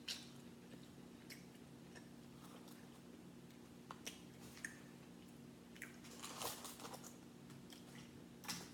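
Faint clicks and crackles of crab-leg shells being picked apart by hand, with a short run of louder crackling about six to seven seconds in, over a steady low hum.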